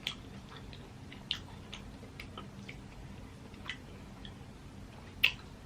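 Crawfish being eaten close to the microphone: scattered, irregular clicks and small cracks of shells being peeled and wet mouth smacks. The sharpest clicks come right at the start, about a second and a quarter in, and near the end.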